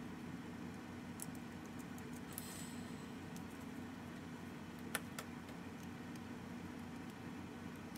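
Faint clicks and light rattles of plastic LEGO bricks being handled and pressed together, with a brief rustle a couple of seconds in and one sharper click about five seconds in, over a steady low hum.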